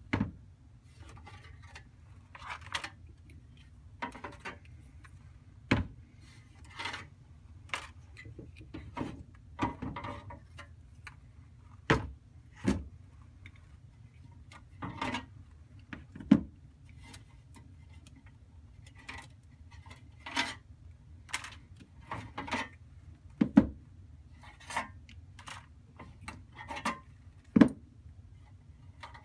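Sealed lead-acid batteries being lifted out of a metal battery tray and set down on a wooden tabletop: irregular knocks and clunks of the battery cases against the steel tray and the wood, with light rubbing and scraping between them.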